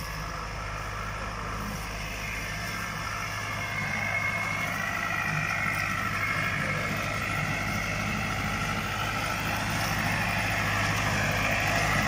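Massey Ferguson tractor engine running steadily as it pulls a plow through orchard soil to turn up potatoes. It gets louder about four seconds in and again toward the end as the tractor comes closer.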